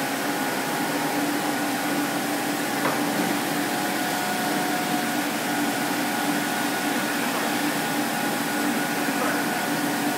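Steady whirring hum of running rubber hose production-line machinery, with a few constant tones over an even noise.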